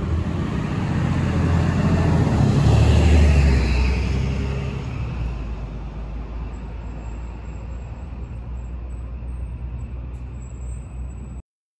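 City bus engine pulling away from the stop and passing close, loudest about three seconds in, then fading into steady street traffic. The sound cuts off just before the end.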